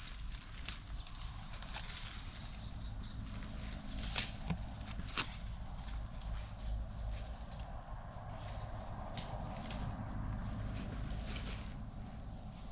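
Steady high-pitched drone of insects, with a few sharp snaps: two about four and five seconds in, and one more near nine seconds.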